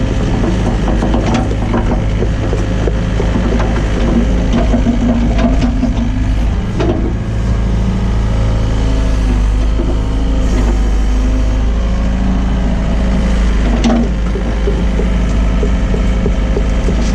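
Hyundai excavator's diesel engine running steadily under working load, its pitch shifting slightly as the hydraulics work, with a few sharp knocks along the way.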